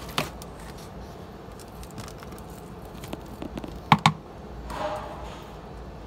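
Gloved hand stirring crumbly vermicompost in a worm-bin tray, with two sharp knocks close together about four seconds in.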